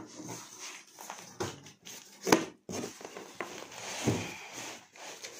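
Cardboard shipping box and its plastic packing strap being handled: rustling, crackling and scraping, with a few knocks and one loud sharp snap a little over two seconds in.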